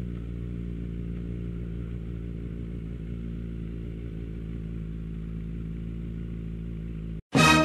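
Suzuki GSF 250 Bandit's small inline-four engine idling steadily at a standstill, with no revving. Loud music cuts in just before the end.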